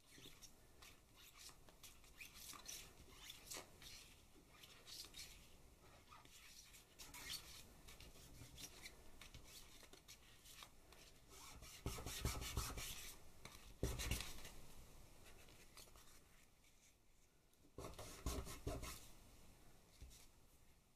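Faint scratching and rubbing of a thin wooden stick drawn over paper laid on an oil-painted card, in short irregular strokes. A few louder stretches of paper handling, with dull bumps, come in the second half.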